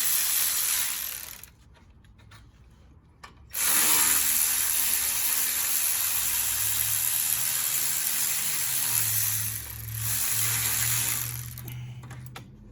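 Power ratchet spinning a 3/8 hex socket to back out the brake caliper bolts, in two long runs: one ending about a second and a half in, then another from about three and a half seconds in until near the end.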